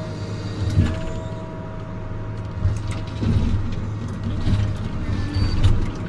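Forestry harvester at work: its engine runs steadily under load with a steady whine, and knocks come as the harvester head grips and saws through a pine stem.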